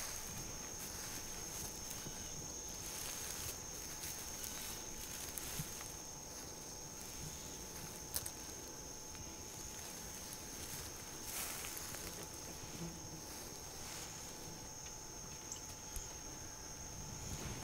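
Steady high-pitched insect chorus, with soft footsteps and rustling in grass and brush, and a sharp click about eight seconds in.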